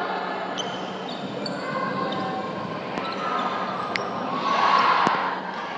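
Sports-hall ambience during a handball match: a handball bouncing on the court several times, over a steady background of crowd and players' chatter. There is a brief swell of crowd noise about four and a half seconds in.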